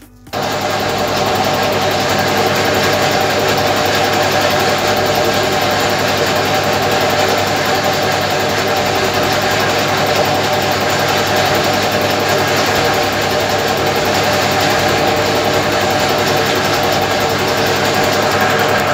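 Hobby metalworking machine tool running steadily under load, a motor whine with an even cutting noise, as the weld beads and corners are machined off a welded steel part. The sound comes in suddenly just after the start and holds level.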